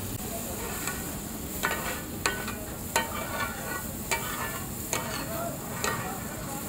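Chicken in masala gravy sizzling on a large metal tawa griddle while a flat spatula stirs and scrapes it. The spatula strikes the griddle with sharp, ringing clanks about once a second.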